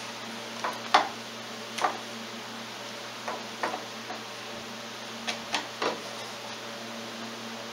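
About ten short, sharp clicks and taps at irregular intervals, the loudest about a second in, from parts being handled and fitted by hand at an ATV's front hub and knuckle, over a steady low hum.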